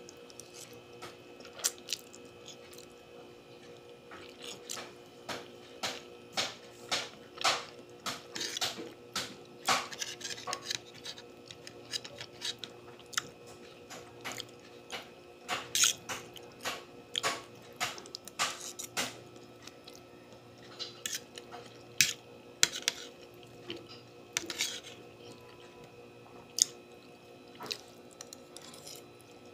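Close-up eating sounds of spaghetti carbonara: many short, irregular wet clicks and smacks of chewing and sucking up noodles, with an occasional tap of a fork on the plate, over a steady faint hum.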